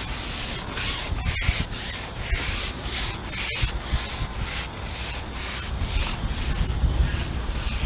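Strong wind buffeting the microphone: an uneven rushing hiss that swells and fades in gusts over a low rumble.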